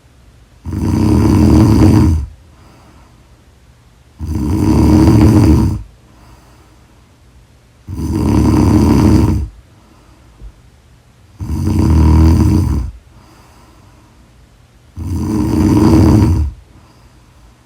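A woman snoring loudly in her sleep: five long snores, each about a second and a half, coming evenly about every three and a half seconds, with quiet breathing between them.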